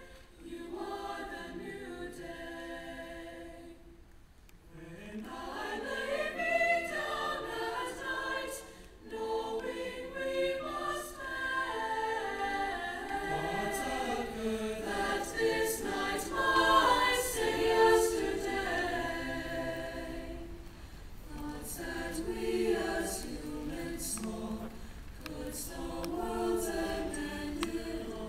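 A mixed-voice high school choir singing in harmony. The sound drops to a brief lull about four seconds in, then the voices build again.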